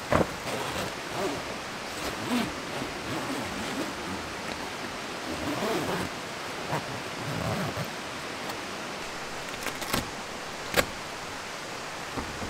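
Steady rain falling, with the rustle of a rain poncho and tent fabric being handled, and two sharp clicks near the end.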